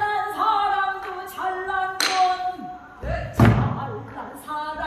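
Pansori singing: a solo voice holding and bending long notes, accompanied by the buk barrel drum. The drum gives sparse strokes, the heaviest about two and three and a half seconds in, with lighter taps between.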